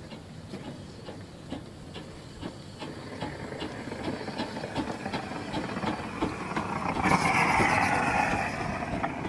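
A small narrow-gauge steam locomotive moving slowly past, with soft even beats about two a second that build gradually. About seven seconds in a loud hiss of escaping steam rises for a couple of seconds as it draws alongside.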